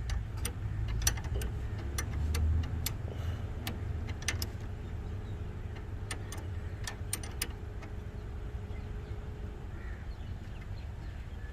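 Irregular light metallic clicks and taps from tools and metal pipe fittings being handled while a new O-ring seal is fitted to a car air-conditioning refrigerant pipe, over a low steady rumble.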